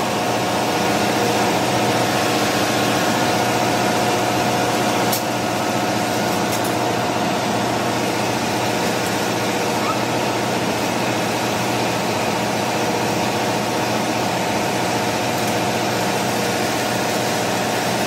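Steady drone of running ship's engine-room machinery, a dense noise with several steady hum tones, and a single sharp click about five seconds in.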